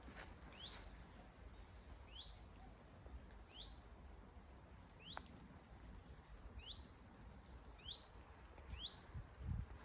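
A small bird calling over and over, a short high two-part call with a falling sweep, about every second and a half. Low wind rumble on the microphone underneath, and a few soft thumps near the end.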